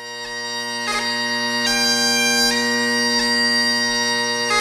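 Bagpipe music: steady low drones under a chanter melody that steps from note to note, swelling in over the first second.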